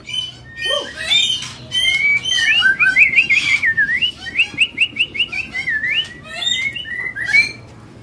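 Caged white-rumped shamas (murai batu) singing in full song form ('gacor'): a continuous run of quick whistled phrases, slurs and chirps, with several birds singing over one another.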